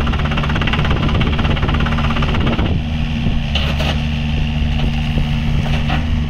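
2020 Yanmar VIO50-6A mini excavator's diesel engine running steadily as the machine is operated. A little under three seconds in, the harsher upper part of the sound falls away and the engine drone carries on, with a couple of brief hisses near the end.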